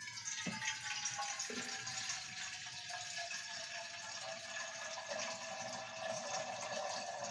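Water running steadily from a tap into a vessel, a continuous rushing hiss. Two soft low thuds come about half a second and a second and a half in.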